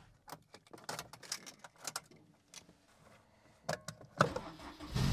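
Scattered light clicks and taps in a Honda S2000's cabin. Near the end comes a short noisy whir as the starter cranks the engine. This is the S2000 starter noise that owners find common and say tends to come back even after fixing.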